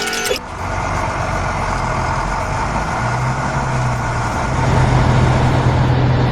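A heavy construction vehicle's engine running steadily with a low drone, which gets louder about three seconds in and again a little later. It cuts in right after a brief musical tone at the very start.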